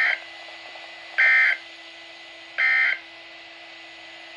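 NOAA Weather Radio SAME end-of-message signal: three short bursts of digital data tones, about a second and a half apart, marking the end of the weekly test broadcast. A faint steady hum and radio hiss run underneath.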